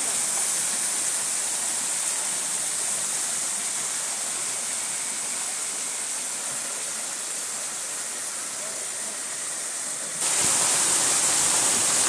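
Steady rush of a waterfall's falling water. About ten seconds in, it jumps abruptly louder and brighter.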